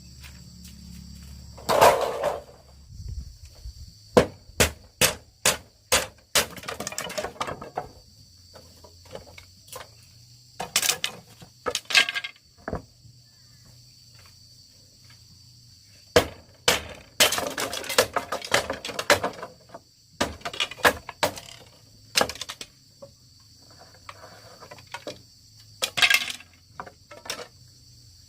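Crickets or other insects shrilling steadily, with irregular sharp knocks, clatters and short rustling scrapes close by, in clusters around 4–7 seconds, 11–12 seconds, 16–19 seconds and 26 seconds.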